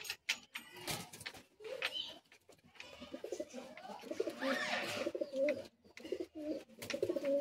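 Domestic pigeons cooing in low, pulsing runs, heaviest through the middle, with a few sharp clicks and knocks.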